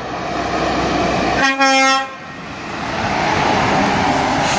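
Truck approaching with a rising rush of engine and tyre noise, then a short air-horn blast of about half a second, about a second and a half in. After the horn the truck drives close past, its engine and tyre noise swelling and then starting to fade near the end.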